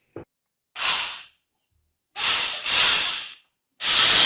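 Repaired Hilti-type rotary hammer drill test-run with short trigger pulls: a click, then three brief bursts of its motor spinning up and dying away, then held running from near the end. The motor is running again after the repair.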